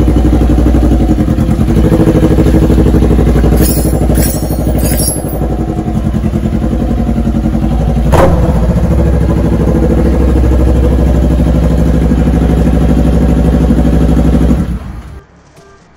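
Kawasaki Ninja 400's parallel-twin engine running at low revs through a short papaya-stem exhaust, loud and steady, with a few light clicks around four seconds in and a sharp clank about eight seconds in. The engine stops about a second before the end.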